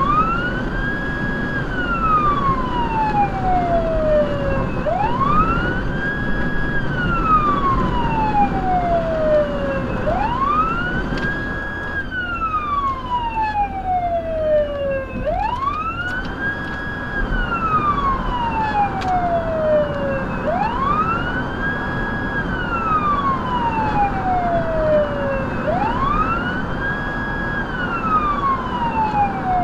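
Federal Signal Touchmaster Delta electronic siren sounding its wail tone through the vehicle's 100-watt speakers, heard from inside the cab. Each cycle rises quickly, holds briefly at the top, then falls slowly, repeating about every five seconds over steady road noise.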